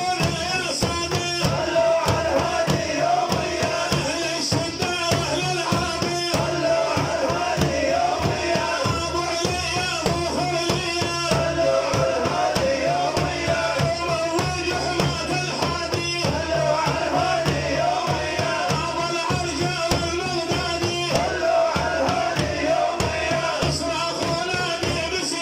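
Devotional music: rapid, steady drum beats under a held melodic line.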